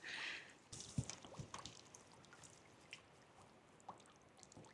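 Faint water dripping and small splashes, a brief soft hiss at the start and then scattered light drips, most of them in the first two seconds, as the freshly landed trout is handled at the water.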